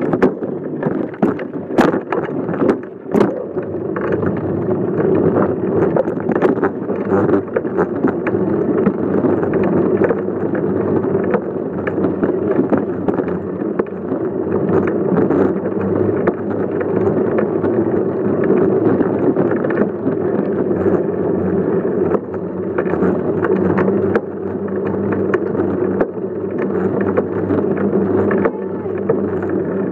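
Steady rumble and rattle of a bicycle rolling over sidewalk and pavement, picked up by a phone mounted on the bike's frame, with sharp knocks from bumps in the first few seconds.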